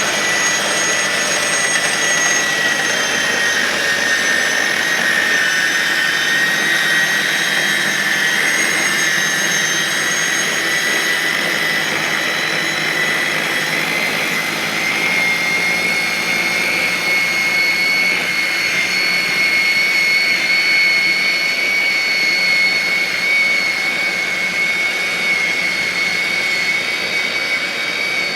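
EGO electric two-stage snow blower running under load, its electric motors giving a steady high whine over the rush of the auger and impeller throwing wet, slushy snow. The whine sags a little early on and rises slightly about halfway through as the load changes.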